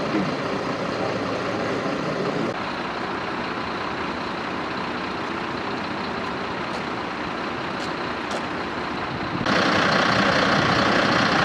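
Steady noise of idling vehicle engines at a roadside, with a few faint clicks. The sound changes abruptly twice, growing louder and hissier near the end.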